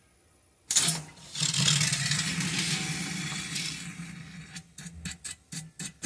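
Flushing liquid and air forced out of a refrigerator evaporator line into a plastic bottle: a sudden burst, a hissing rush that fades over about three seconds, then short sputtering spurts as the line empties.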